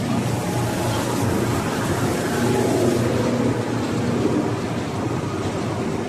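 Battery recycling plant machinery running: a steady mechanical rumble with a constant low hum and a wash of noise.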